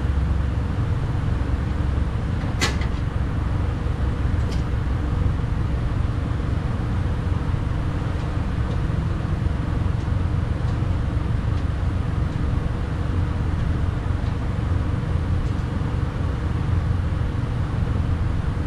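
Steady low rumble throughout, with a sharp click about three seconds in and a fainter one a couple of seconds later from hand work inside a truck door's bare shell during a window regulator and motor replacement.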